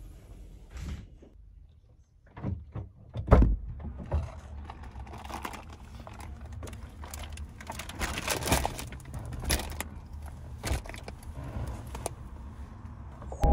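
Handling at the open front door of a parked car: rustling, clicks and knocks as things are set inside, with a loud thump a little over three seconds in.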